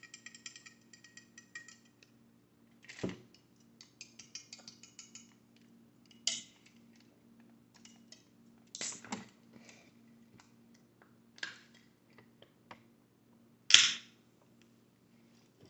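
Close-miked eating and food-handling sounds from a seafood boil. There are two bursts of fine crackling and about five sharp snaps or clacks, the loudest near the end, over a low steady hum.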